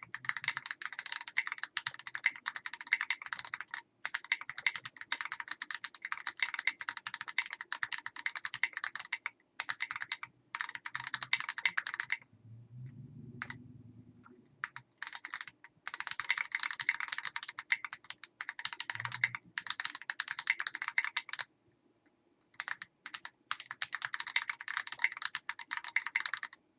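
Fast typing on a mechanical keyboard with factory-lubed Gateron Ink Kangaroo tactile switches, a brass plate and KAT-profile keycaps, in a foam-dampened case. Dense runs of keystrokes break off twice, about 12 seconds in and again about 21 seconds in.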